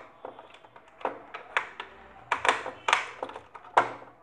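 A string of irregular sharp clicks and clacks, louder in the second half, from a screwdriver working the screws out of the hard plastic control box of a Jack F4 sewing machine.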